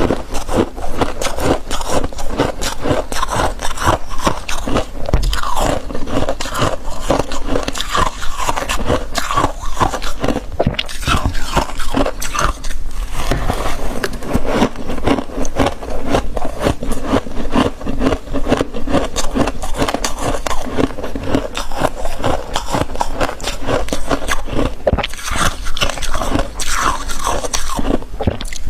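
Thick, fluffy freezer frost crunching and scraping without a break, a dense run of crisp crackles.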